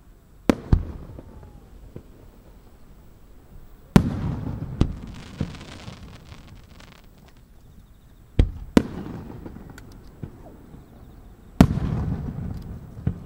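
Aerial firework shells going off in a display: sharp booms arriving in pairs about four times, each dying away in a rumble. A hissing crackle follows the second pair.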